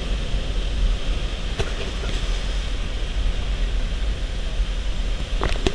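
Steady rush of wind and aircraft engine noise inside a jump plane's cabin with the exit door open, with a couple of small clicks about one and a half seconds in and near the end.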